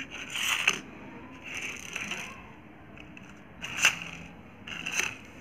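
Plastic toy race car handled on a concrete floor: scraping and rolling noises, with a couple of sharp plastic clicks near the end.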